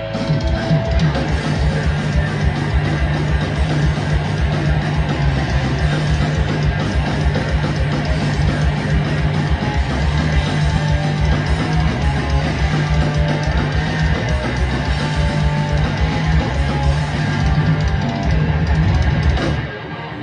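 Thrash metal band playing live: distorted electric guitar riffing over bass and fast drums. The band cuts out for a moment near the end.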